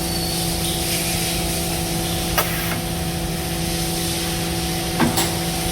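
Automated CNC pipe bending machine running: a steady mechanical hum over a hiss, with two sharp clacks, about two and a half and five seconds in.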